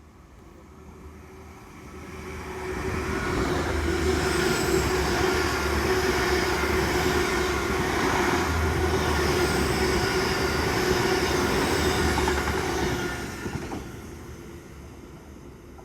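A train passing along the line: its sound builds over a couple of seconds, stays loud for about ten seconds with a steady tone through it, then fades away.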